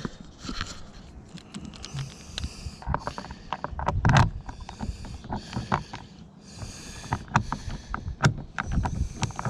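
Rear door trim panel of a Volvo V70/XC70 being handled and pushed into line on the door: scattered knocks and clicks with bursts of rustling, the loudest knock about four seconds in.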